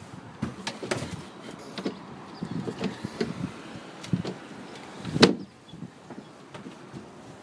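A white fibreglass hatch lid on a boat deck being lifted and let down, with handling knocks and clicks and one sharp thud about five seconds in as the lid shuts.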